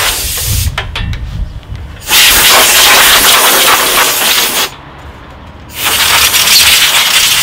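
Compressed-air blow gun blowing dust out of a PC case and its fans, in loud hissing blasts: one cuts off under a second in, a long blast runs from about two seconds to nearly five, and another starts about six seconds in. Faint clicks and handling noise fill the short gaps between blasts.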